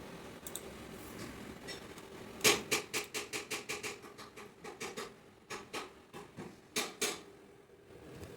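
A rapid run of sharp clicks or taps, about four to five a second, starting loudest and trailing off after a few seconds, over a faint steady hum.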